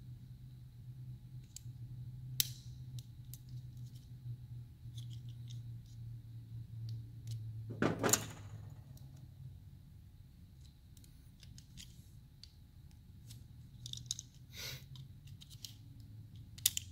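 Small plastic parts of a Volvo I-Shift gear selector being handled and taken apart on a metal workbench: scattered light clicks and rattles, with one louder clattering knock about halfway through. A steady low hum runs underneath.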